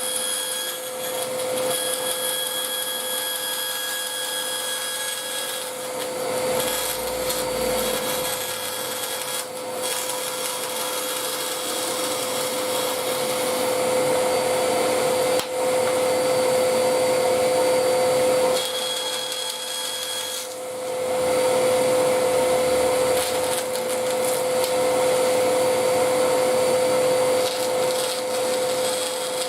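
Bandsaw running steadily with a constant motor hum, cutting a wooden fretboard blank to shape; the cutting noise swells and eases as the wood is fed through the blade.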